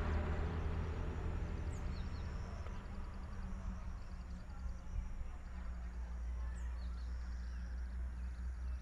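Outdoor ambience after rain: a few short bird chirps and a fast, pulsing insect trill over a steady low rumble, with a louder noise dying away in the first second or two.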